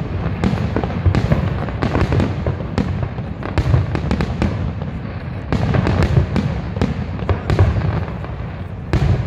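Fireworks display: aerial shells bursting in quick succession, a dense run of bangs and crackle over a continuous low rumble, with sharper reports standing out several times.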